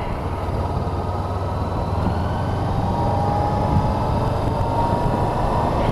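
Motorcycle under way on a road: engine running with wind and road noise, picking up speed as it pulls away after a turn, with a faint whine rising slightly in pitch.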